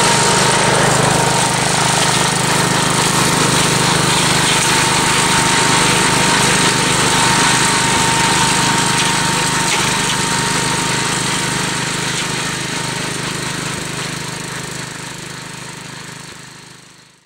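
Gravely Commercial 12 walk-behind tractor with a brush hog, its engine running steadily, then fading out over the last few seconds.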